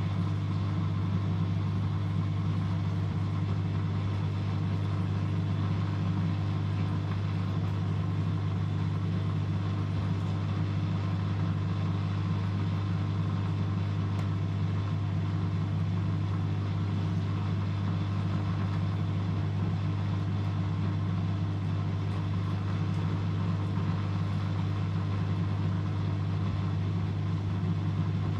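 Antonio Merloni-built Eurotech EW 450 washing machine running with an even, unbroken hum, without pauses or drum reversals, in the rinse-and-spin stage of a 95 °C programme.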